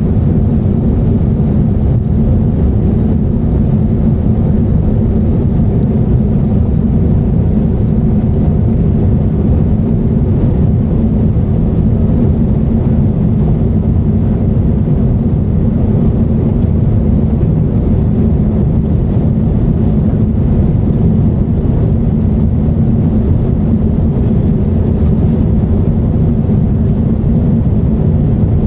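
Steady low roar inside the cabin of an Airbus A350-900 in flight, from its Rolls-Royce Trent XWB engines and the airflow past the fuselage.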